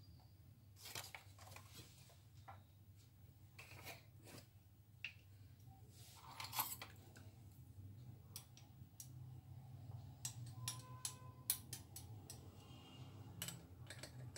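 Quiet room tone with a low hum and scattered faint clicks and rustles, coming more often in the second half, with one slightly louder one about six and a half seconds in.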